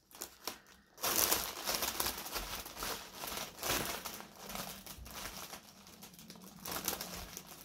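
Large clear plastic bag crinkling as hands rummage through the small plastic packets of diamond painting drills inside it. It starts about a second in, is loudest at first, then goes on in irregular, softer rustles.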